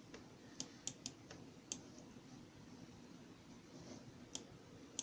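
A few faint, sharp clicks at irregular intervals over quiet room tone: several in the first two seconds, then two more near the end.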